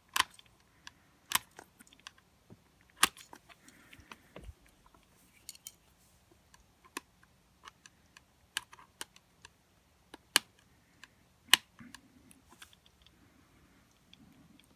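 Scattered sharp clicks and taps of small wire terminals and plastic housing parts of an angle grinder being handled and pushed into place, a few louder knocks among them.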